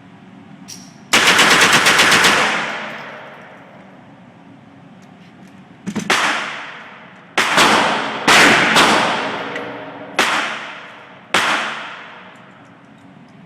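.22 Ruger semi-automatic bump-fired: a fast burst of shots about a second in that sounds like automatic fire. About six more single shots follow a second or so apart, each ringing off with a long echo.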